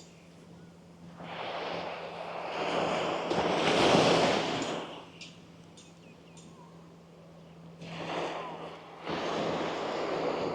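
Small waves breaking and washing up a sandy beach. One wash builds from about a second in and peaks near four seconds, and another comes in near the end.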